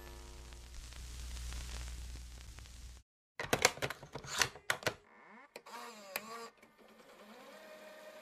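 Glitch-style outro sound effects: about three seconds of static hiss over a low hum, then a sudden drop-out to silence. A quick run of sharp digital glitch clicks follows, then warbling tones that bend up and down, and near the end a steady electronic tone that slides up and holds.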